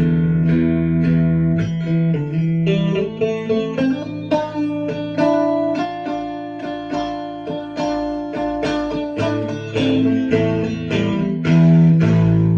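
Fender Stratocaster electric guitar played clean through a Fender Deluxe Reverb amp, no effects: a run of picked chords and single notes, ending on a louder chord left ringing.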